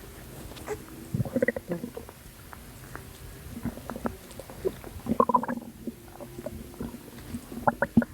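Stomach and belly gurgling: irregular short squelches, pops and bubbly gurgles, in clusters a second or two apart, which the uploader puts down to postpartum water weight.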